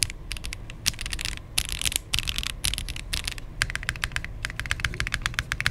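Oasis65 mechanical keyboard with Ghost Judges keycaps, typed on fast in quick runs of crisp keystrokes with short pauses. With only case foam installed on the 1.8 mm flex-cut PCB, the alpha keys sound even and tight, with the hollow echo gone.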